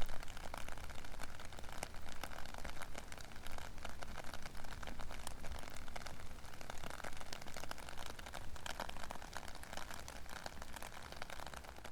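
Rain falling: a dense, steady patter of many individual drops striking a surface.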